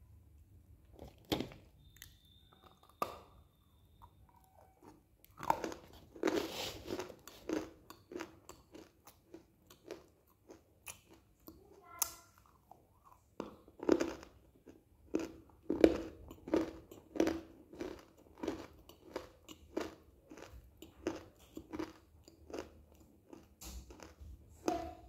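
Close-up crunching bites and chewing of dry white chalky clay: a few scattered crunches, a crisp snap as a piece is bitten off about twelve seconds in, then steady crunchy chewing at roughly one and a half chews a second.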